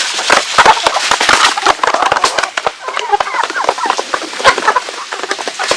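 Chickens clucking with short calls, over many quick sharp clicks and taps.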